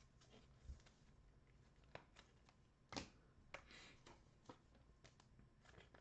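Near silence with faint handling of trading cards: scattered soft clicks and brushing slides as cards are flipped through, the loudest a brief swish about three seconds in.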